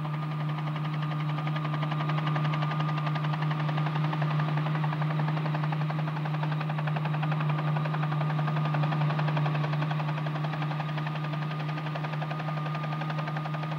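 Steady drone of an aircraft's engines heard from on board, a constant low hum with a fast even pulsing beat.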